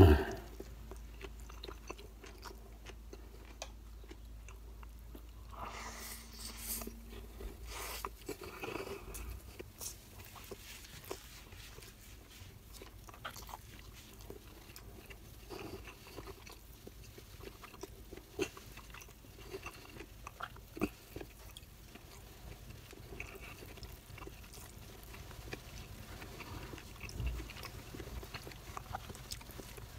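Close-up mouth sounds of a person chewing a mouthful of rice and blanched vegetables: wet smacks and small crunches in an uneven rhythm.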